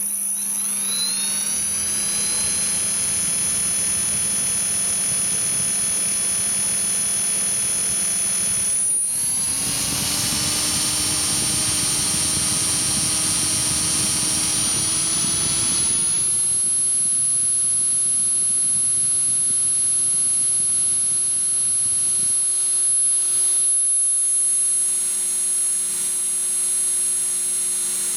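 Align 450M brushless motor of an RC helicopter running at speed: a steady high whine with a grinding noise under it, which the owner takes for bad bearings inside the motor. About nine seconds in it drops out for a moment, then spools back up, its pitch rising and then holding steady.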